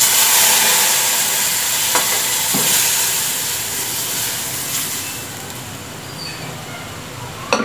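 Boiled arhar dal poured from a pressure cooker into a kadai of hot tempering oil sets off a loud sizzle. It starts suddenly and slowly dies down, and a short knock is heard near the end.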